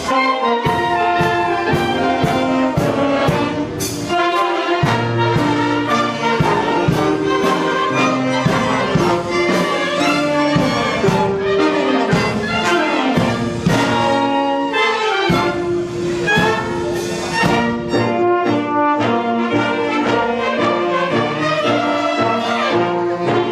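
An orchestra with prominent brass, trumpets and trombones, playing a national anthem.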